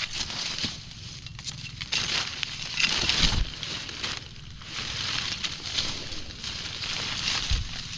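Dry leaf litter and undergrowth rustling and crunching in several bursts as someone pushes through on foot, with a couple of dull thumps.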